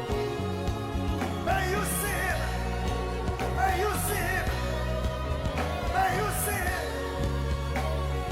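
Gospel worship music: a singer's wavering, drawn-out phrases over a band with a steady bass line.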